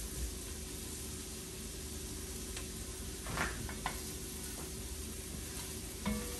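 Food sizzling steadily in an enamelled pot on a stove as it is stirred, with a few brief scrapes and knocks of the stirring utensil against the pot about halfway through and again just before the end.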